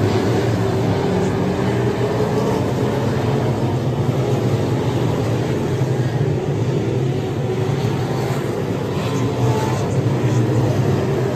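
A pack of USRA limited modified dirt-track race cars running at speed: the steady, loud drone of several V8 racing engines mixed together.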